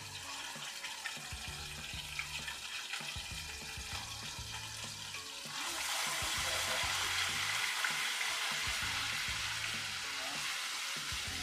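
Ginger-garlic paste frying in hot oil in a kadai, a light sizzle. About halfway through, watery onion paste goes into the pan and the sizzle suddenly turns much louder and fuller as it is stirred with a spatula.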